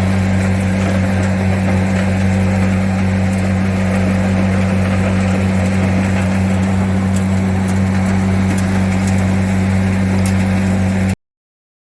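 Steady drone of heavy machinery at work, a CR450 crusher and an excavator running together, a constant low hum that never changes pitch. It cuts off suddenly near the end.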